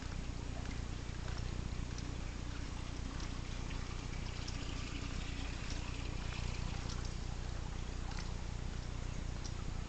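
Quiet night-street ambience: a steady low hum and an even hiss, with faint scattered ticks.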